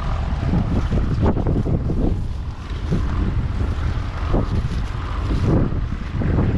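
Wind buffeting the microphone in gusts over the steady running of the 1965 Massey Ferguson 400 combine harvester's 5.0-litre four-cylinder diesel engine.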